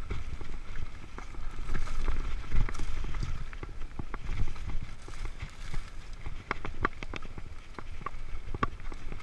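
Mountain bike ridden fast down a dirt singletrack: wind rumble on the microphone and tyre noise on dirt, with irregular sharp clicks and rattles as the bike jolts over roots and bumps.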